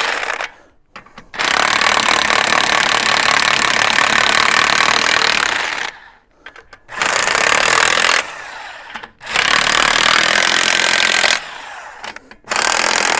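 Impact wrench hammering on a truck's wheel lug nuts in several bursts, the longest about four seconds, with short pauses between them.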